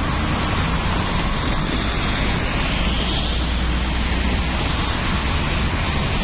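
Steady highway traffic noise: the continuous rush of vehicles and tyres, with a low rumble underneath and a passing vehicle swelling slightly near the middle.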